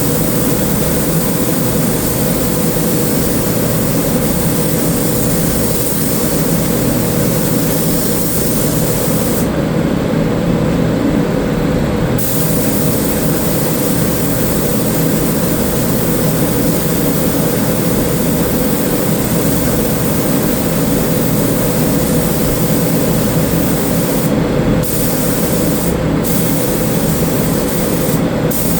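Paint spray gun spraying sealer primer: a loud, steady hiss over a low hum. The high part of the hiss drops out for a couple of seconds about ten seconds in, and briefly three times near the end.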